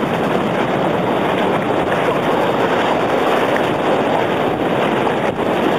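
Steady rushing noise of wind buffeting the microphone, mixed with small surf waves washing up the sand.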